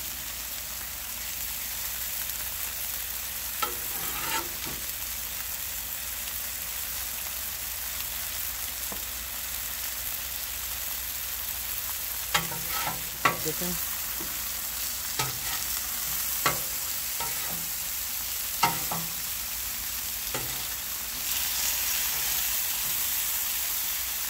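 Chicken thighs frying on a Blackstone flat-top griddle, a steady sizzling hiss, with a metal spatula clicking and scraping on the steel cooktop a few times. The sizzle grows louder near the end.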